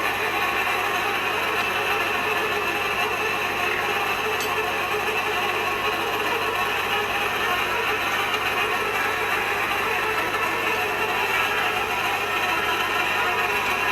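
Steady mechanical running noise with a constant low hum, unchanging throughout.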